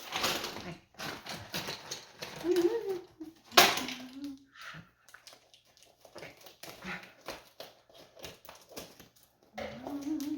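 Packaging being unwrapped: irregular rustling and crinkling crackles, with one sharp, loud crackle about three and a half seconds in. A voice makes a few short murmurs in between.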